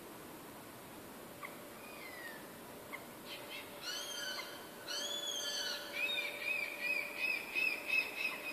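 Birds screaming: a few faint short calls, then two loud drawn-out calls about four and five seconds in, followed by a fast run of wavering repeated calls near the end.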